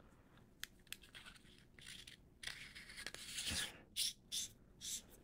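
Faint scraping and clicking of a small handheld flashlight's threaded body being twisted together by hand, with short bursts of rubbing and a few light clicks.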